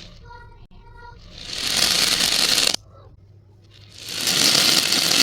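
Two rushing rattles of many small beads pouring, played backwards: each swells up and then cuts off sharply. A short pitched tone sounds in the first second.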